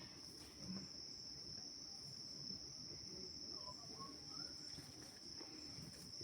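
An insect, of the cricket kind, trilling on one steady high note without a break.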